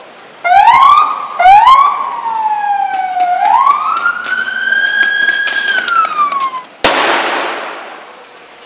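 Police vehicle siren: two short rising whoops, then a longer wail that rises, holds and falls away. Near the end comes a sharp bang followed by a hiss that fades over about two seconds.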